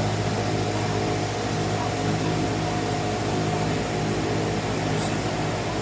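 Steady mechanical hum of a small motor, like a room fan or air conditioner, with a faint steady whine above it.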